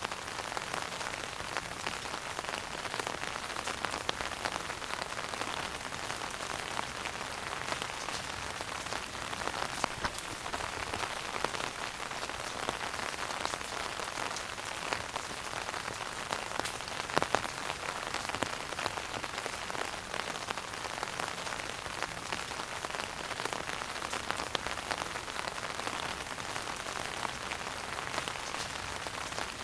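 Wood fire burning in a fireplace, crackling densely and steadily, with a sharper pop a little past halfway.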